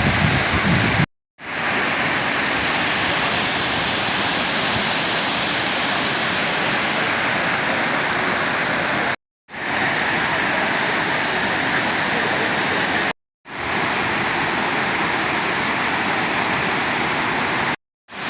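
Waterfall: a steady rush of falling water, broken four times by a brief moment of total silence where clips are joined. Wind rumbles on the microphone for about the first second.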